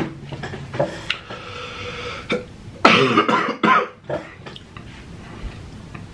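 A man coughing: a few short throat sounds, then a loud burst of coughing about three seconds in that lasts under a second.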